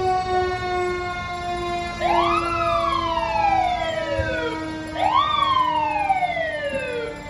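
Fire apparatus sirens on turnout: one siren tone winds slowly down throughout, while a second siren wails twice, each time rising quickly and then sliding down over a couple of seconds.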